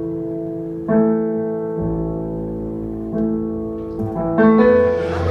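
Music: a keyboard playing slow, sustained chords, moving to a new chord about every one to two seconds.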